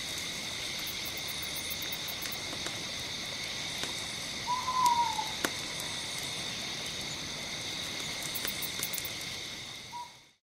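Night-time forest ambience: a steady chorus of chirring insects, with a single short call about four and a half seconds in that falls slightly in pitch. It fades out near the end.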